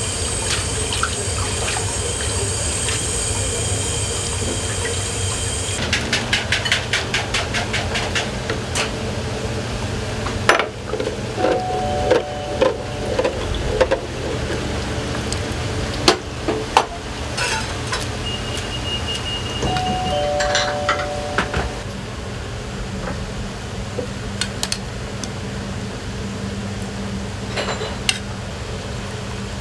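Udon-kitchen work sounds: a steady rush of tap water over noodles in a tub at first, then repeated clicks, clinks and knocks of bowls, a metal pot and a ladle on a steel counter. A short two-note beep sounds twice, about 12 and 20 seconds in.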